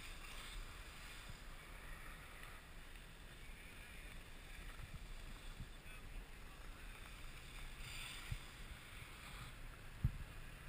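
Steady wind noise over a GoPro's microphone, muffled by its housing, with two soft knocks on the camera near the end.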